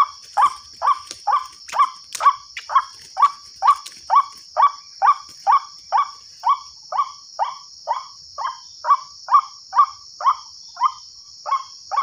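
White-breasted waterhen (ruak-ruak) call, a short croaking note repeated monotonously about twice a second, played through a small horn loudspeaker as a lure for trapping. A steady high insect buzz runs beneath it.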